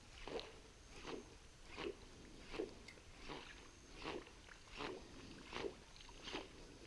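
Topwater lure being jerked back across calm water: a faint short splashy chug about every three-quarters of a second, nine in a row.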